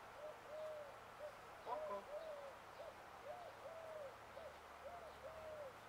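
A dove cooing, faint: a repeated phrase of three soft coos, the middle one longest, about every one and a half seconds. One brief, louder call with several pitches cuts in about two seconds in.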